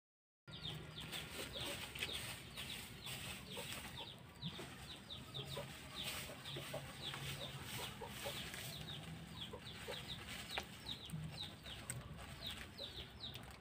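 Chickens peeping and clucking faintly and continuously, many short high chirps a second over a low steady hum.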